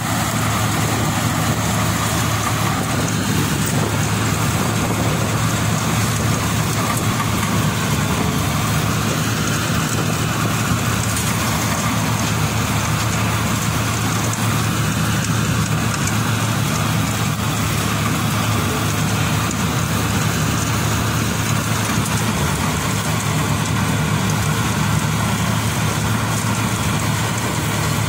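Tracked combine harvester running steadily while cutting wheat: a steady low hum under a dense, even rushing noise that does not change.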